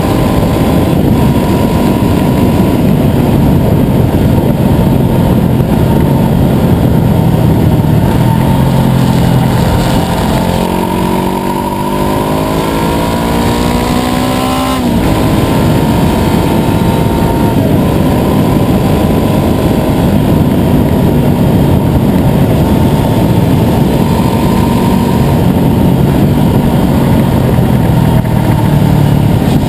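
Honda CBR500R's 471 cc parallel-twin engine running loudly. Its pitch climbs steadily for several seconds about a third of the way in, drops suddenly, then starts to rise again near the end.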